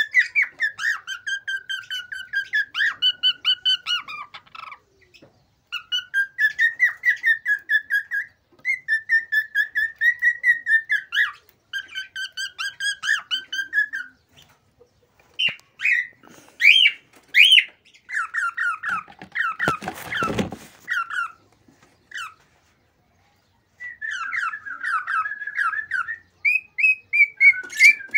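Male cockatiel singing excitedly, as in courtship: phrases of quick, warbling, repeated whistled notes broken by short pauses. A brief scratchy noise comes about twenty seconds in.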